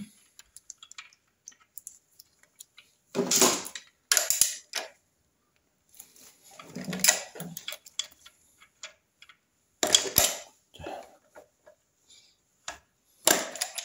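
Metal clinking and clattering in several separate bursts: a spare crankshaft pinion is slotted into the engine's timing gears, and a socket on an extension bar is fitted onto the alternator rotor nut. The pinion locks the crankshaft so that the nut can be torqued without the engine turning over.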